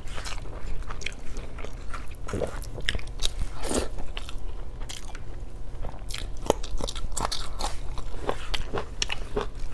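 Close-up chewing and biting of a person eating chicken adobo and rice by hand: many short, irregular wet mouth clicks and crunches.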